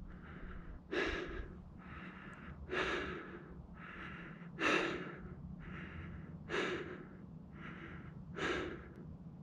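A person breathing hard close to the microphone, winded from a steep climb: a loud breath out about every two seconds, with a softer breath in between each.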